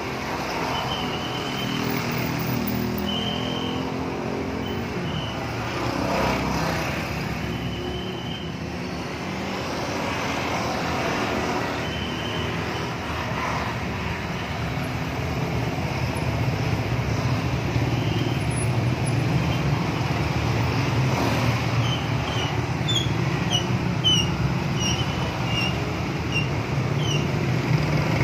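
Congested road traffic: a steady mix of engine and tyre noise, with a deeper engine rumble growing louder in the second half. Short high chirps come and go, clustering into a rapid series near the end.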